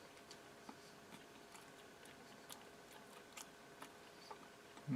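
Faint chewing: soft, scattered mouth clicks of someone eating, barely above the room hiss.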